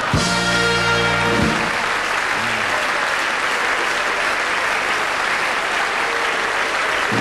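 Audience applauding over band music.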